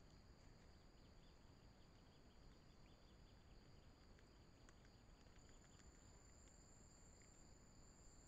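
Faint, steady insect chirring in forest: two thin high tones held throughout, the higher one growing louder about two-thirds of the way in, with a few faint ticks over otherwise near-silent background.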